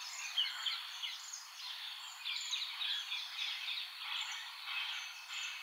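Faint outdoor nature ambience: a soft hiss with many short, high chirps scattered throughout.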